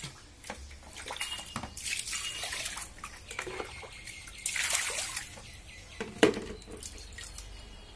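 Water splashing and pouring as a plastic mug scoops from a plastic basin and tips water into a plastic bucket, in two spells of a couple of seconds each. A single sharp knock about six seconds in as the mug is set down in the bucket.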